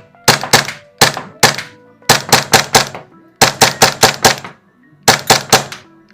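Glock 19 airsoft pistol firing rapid semi-automatic shots in quick strings of three to five sharp cracks, about seventeen in all, with short pauses between the strings.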